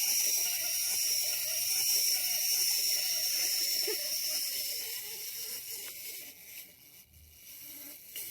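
Clockwork spring motor of a cheap plastic wind-up fish toy whirring steadily as the toy runs, then fading out about six to seven seconds in as the spring unwinds.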